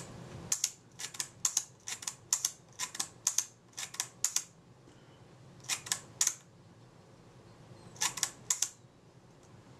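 Synchro-Compur leaf shutter mechanism from a Kodak Retina IIIc being worked by hand, giving a run of sharp metallic clicks, often in quick pairs: about a dozen in the first half, then three more and then four more near the end.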